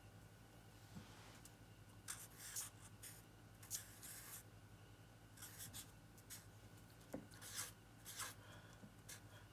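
Sharpie fine-point felt-tip marker scratching faintly across paper in a series of short strokes as numbers are written out, over a steady low hum.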